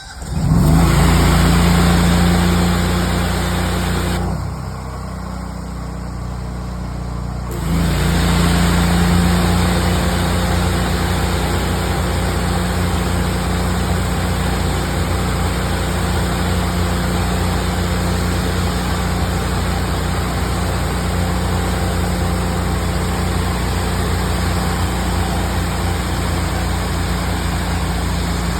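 Honda iGX800 V-twin engine on a hot-water pressure washer starting up and running under load, with a hissing spray over the engine note. About four seconds in the sound drops and the hiss falls away, and around seven and a half seconds it comes back full and stays steady.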